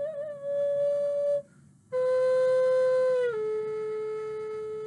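Native American-style wooden flute playing slow held notes: one note wavers and then holds for about a second and a half, and after a short gap a lower note comes in, steps down once more near the middle and is held to the end of the phrase.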